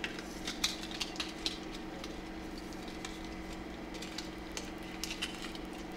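Scattered small clicks and rustles of hands handling a wireless charging puck, its cable and its white packaging, over a steady low hum.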